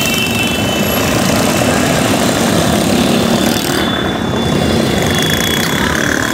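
Busy road traffic: motorcycles and trucks passing close by, their engines making a loud, steady din.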